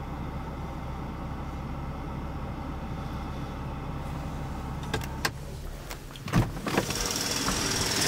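BMW X5 engine idling, heard inside the cabin as a steady low hum. About five seconds in come two sharp clicks, then two loud knocks as the door is opened.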